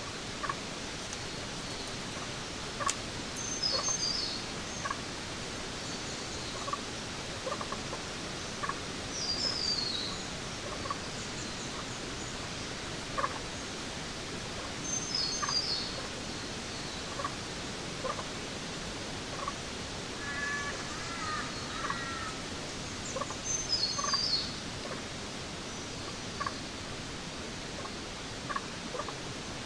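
Jungle ambience: a steady hiss under bird calls. One bird repeats a short, high, descending stepped call about every six seconds, with scattered brief chirps between, and a lower warbling call about two-thirds of the way through.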